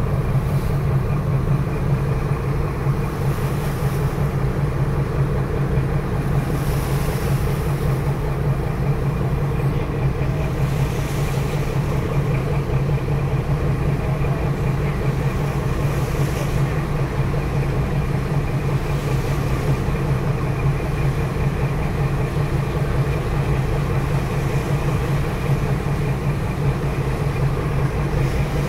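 Marine diesel engines running steadily, a constant low drone with a fixed pitch, over the rush of churned wake water. Brief hissing swells come every few seconds.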